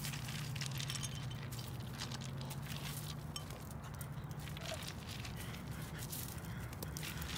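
Dry twigs crackling and rustling in short scattered ticks as a person crawls and shifts over them, over a steady low hum.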